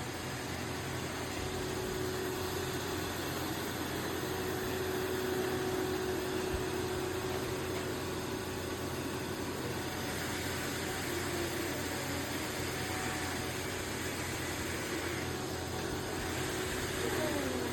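Robot vacuum-mop running: a steady whirring rush of motor and suction noise with a constant hum, and a short gliding tone near the end.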